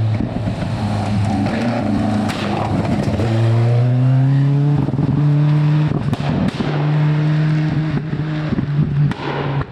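Rally car engine driven hard on a stage, its pitch climbing and then stepping down several times as it shifts up through the gears, with sharp cracks over it.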